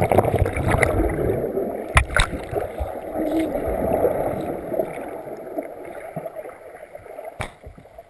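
Muffled underwater water noise picked up by a GoPro inside its waterproof housing as it goes under lake water: a steady rushing, gurgling sound that slowly fades in its second half. A few sharp clicks or knocks cut through it, two close together about two seconds in and one near the end.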